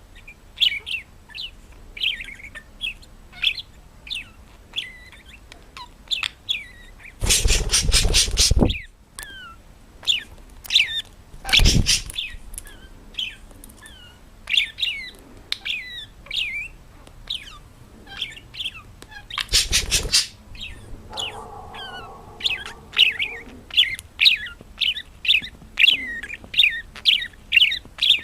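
A small bird chirping in quick, repeated short notes, several a second throughout. Three loud, rustling noise bursts break in: a longer one about a quarter of the way through, a short one near the middle, and another about two-thirds through. A brief lower-pitched call follows the last burst.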